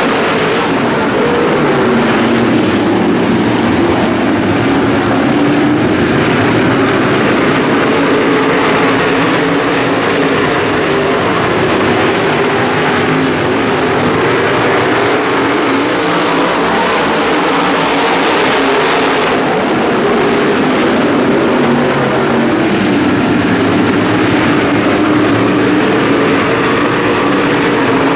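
Modified stock car V8 engines running hard in a race, the engine pitch rising and falling as the cars go around the track.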